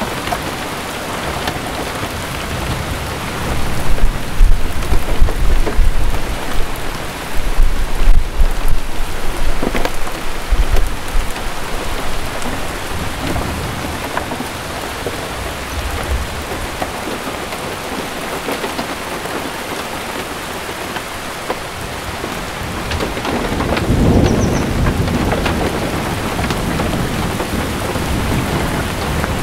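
Steady rain of a spring thunderstorm, with thunder rumbling loudly from about four to eleven seconds in and again, more softly, around twenty-four seconds in.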